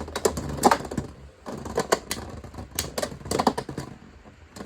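Beyblade spinning tops clashing in a plastic stadium: a string of sharp, irregular clicks and knocks as the beys strike each other and the stadium walls.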